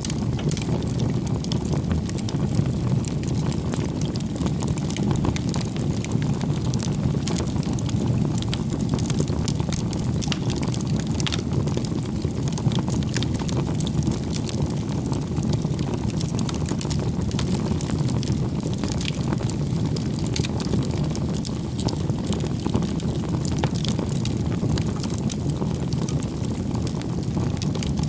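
Wood fire burning in the open: a steady low rush of flames with scattered small crackles and pops from the burning wood.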